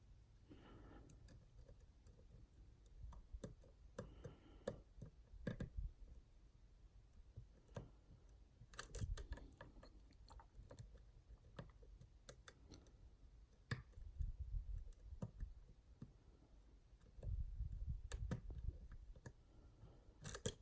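US Star pin-in-pin dimple lock being picked: irregular light clicks and taps of the pick against the pins, with low handling bumps now and then. The pins are clicking but have not yet gone into a false set.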